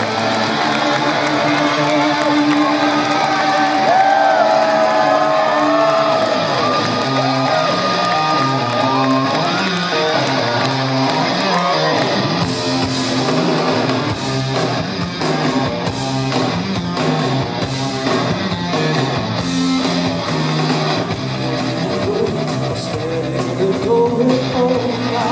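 Rock band playing live at concert volume. Electric guitar holds bending, sustained notes, then settles into a repeating riff about six seconds in, and drums and cymbals join about halfway through.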